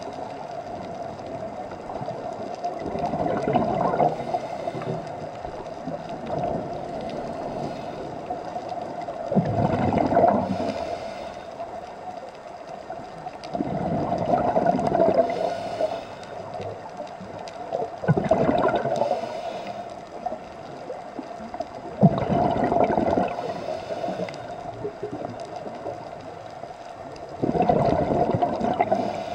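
Scuba diver breathing through a regulator underwater: a gurgling rush of exhaled bubbles six times, about every four to five seconds, with a faint hiss of inhalation between, over a steady hum.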